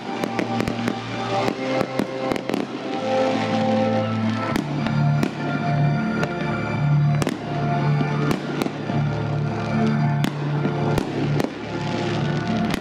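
Fireworks display: aerial shells bursting in many irregular sharp bangs and crackles, with music with long held notes playing underneath.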